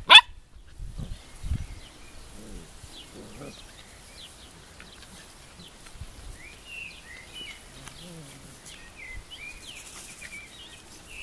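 A dog barks once, loud and sharp, right at the start, following a first bark just before. After it the stretch is quiet outdoor background with faint bird chirps from about halfway on.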